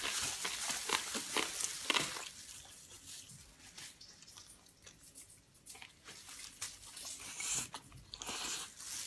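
People chewing and biting into crisp fried food: a scatter of crunchy clicks and wet mouth sounds, dying away for a few seconds in the middle and picking up again near the end.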